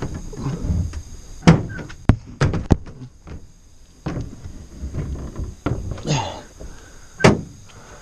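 Ford pickup's tailgate being unlatched and lowered: a cluster of sharp clunks and clicks from the latch and gate a couple of seconds in, and another loud clunk near the end.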